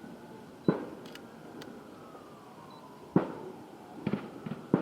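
Aerial fireworks shells bursting: two sharp booms about two and a half seconds apart, each trailing off, then a few smaller pops near the end.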